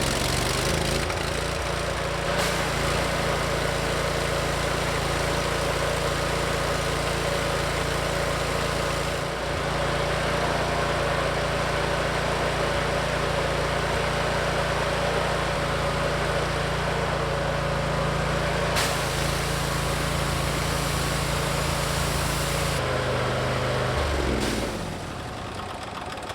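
Landa hot-water skid pressure washer's engine running steadily, driving the pump during a test run for a low-pressure fault. The sound falls off near the end.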